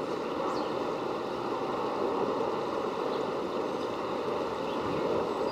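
Steady outdoor rushing noise with no distinct events.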